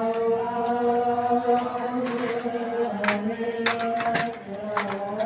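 Voices chanting an Islamic devotional chant in long, held notes, moving to a new note a couple of times.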